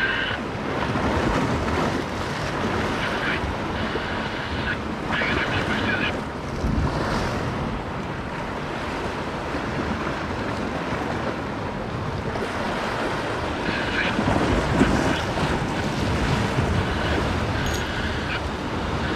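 Sea swell washing against the rocks, with wind buffeting the microphone.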